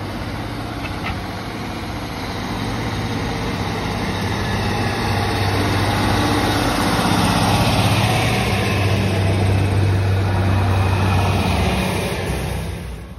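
Class 150 Sprinter diesel multiple unit passing close by, its underfloor diesel engines giving a steady low drone that grows louder for the first half and eases off near the end.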